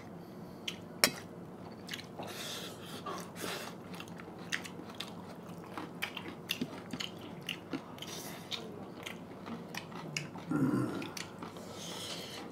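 Close-up eating sounds of pork curry: chewing and biting, with many small wet mouth clicks and smacks scattered through. A brief low voice sound comes about ten seconds in.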